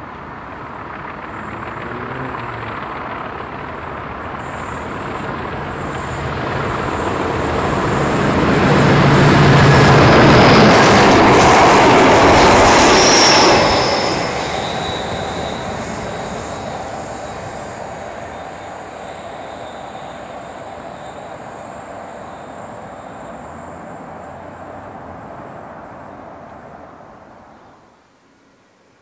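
Convoy of four British main-line diesel locomotives, a Class 40, a Class 45 and two Class 50s, running coupled without a train: engines and wheels on the rails build up as they approach, are loudest as they pass, then fade into the distance. A brief high whistle rings out as the locomotives go by, and the sound cuts off near the end.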